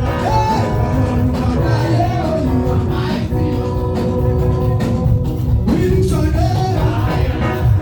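Loud upbeat dance music with singing over a steady beat.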